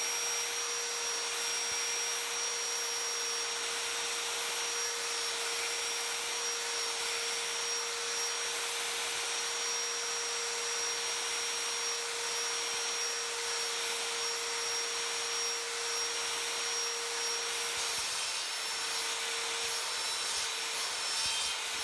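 Sliding mitre saw running steadily with a constant whine, its blade taking shallow passes through Tasmanian Oak hardwood to cut a rebate.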